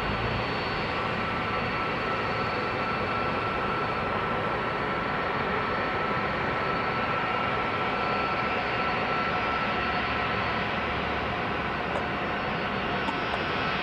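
Airbus A330 twin-engine jet airliner taxiing with its turbofan engines at low power: a steady rushing noise with a thin, constant whine.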